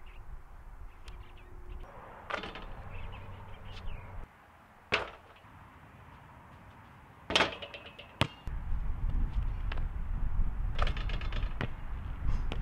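A few separate sharp knocks, then a steady low rumbling noise over the last few seconds.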